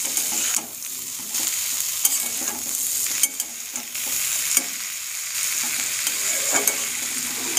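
Sliced bitter gourd, onion and green chilies sizzling in mustard oil in a metal kadai as they are stirred, with a few sharp clicks of the stirring utensil against the pan.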